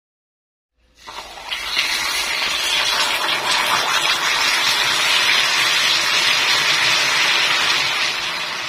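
Water poured into hot molten caramel in a non-stick pan, sizzling and bubbling fiercely as it boils up. It starts suddenly about a second in and holds steady.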